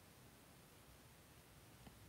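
Near silence: room tone, with one faint tick near the end.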